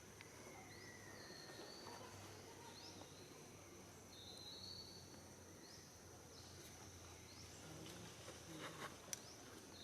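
Faint outdoor ambience: a steady high insect drone with a few short bird chirps scattered through it, and a few soft clicks near the end.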